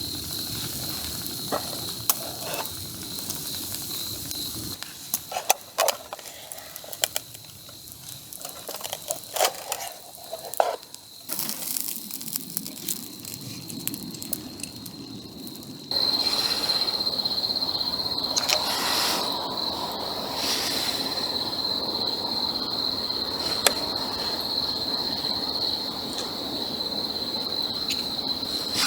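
Wood fire of embers crackling, with scattered sharp pops and clicks over a steady high-pitched tone. About halfway through, a louder, even hiss comes in suddenly and carries on.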